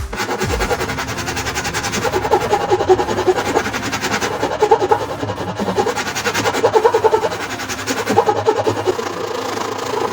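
A small electric motor running with a rapid, even buzz.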